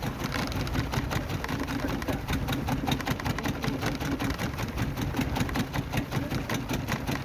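A small engine running steadily, with a rapid, even beat.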